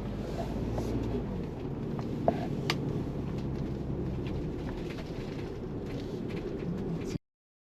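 Ford Bronco driving slowly through snow, a steady low rumble of engine and tyres, with two sharp clicks or knocks about two and a half seconds in. The sound cuts out abruptly near the end.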